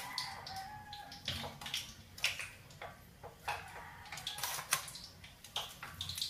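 Irregular crackles and clicks from hot oil in a wok on a high gas flame, with metal tongs knocking on a metal tray.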